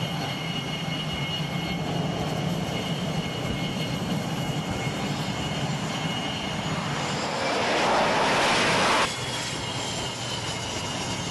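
Jet engines running at high power on an aircraft carrier's flight deck, a steady roar with a high whine. About seven seconds in, a louder rushing swell builds for a couple of seconds and then cuts off abruptly.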